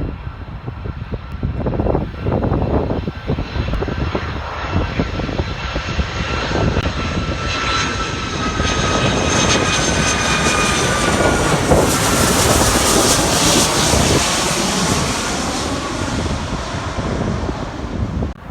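Airliner passing low overhead on approach to land: a loud engine roar with a high whine that slides down in pitch as it goes by. It is loudest about two-thirds of the way through and cuts off abruptly at the end.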